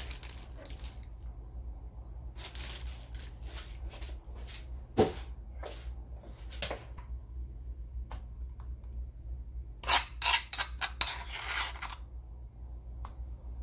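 A metal spoon clinking and scraping against a stainless steel pot and a small bowl as seasoning is spooned into the pot. There is one sharp clink about five seconds in and a quick run of clinks and scrapes near the end, over a low steady hum.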